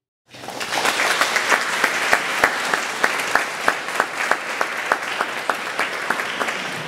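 Audience applauding at the end of a song, with one nearby person's claps standing out at about three a second.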